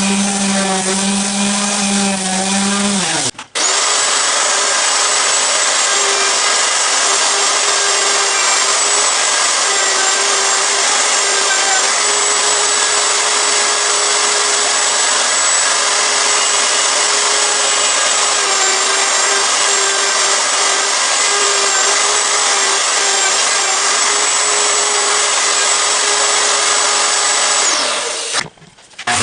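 Electric woodworking tools on a hardwood cutting board. For the first three seconds a sander runs at a steady low pitch and then winds down. A router then runs steadily at a higher pitch with a high whine for about 25 seconds and winds down near the end.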